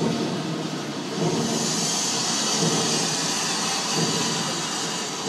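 Steam-ship engine-room soundscape accompanying a projected engine-room scene: a steady mechanical rumble under a hiss of steam that swells about a second in.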